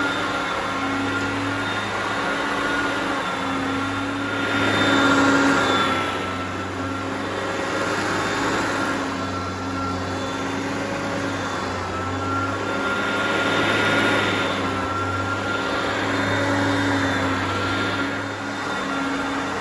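Hoover Concept One upright vacuum cleaner running, a steady motor whine over a rush of air. It swells louder every few seconds as it is pushed back and forth over the carpet.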